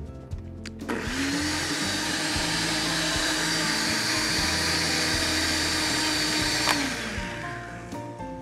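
Countertop blender whizzing liquid Parmesan cheese foam: the motor spins up about a second in, runs at a steady pitch for nearly six seconds, then is switched off with a click and winds down.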